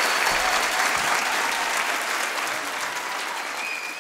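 Audience applauding, a dense even clapping that fades down toward the end.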